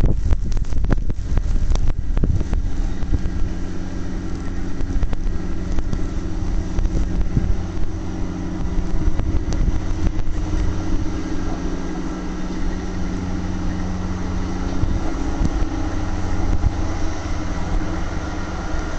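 Diesel engine of a Union MCR600 rotary snow-removal motor car running steadily, with a few sharp knocks in the first two seconds.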